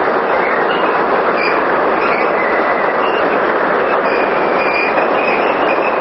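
Water-driven hydropower turbine machine running under water flow: a loud, steady rush of water and machinery noise, with faint high squeaks coming and going.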